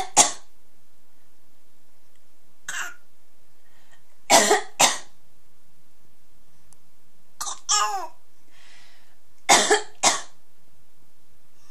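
A woman coughing and a six-and-a-half-month-old baby copying her with short fake coughs, about seven short coughs in all, several in quick pairs, one with a pitched baby voice in it.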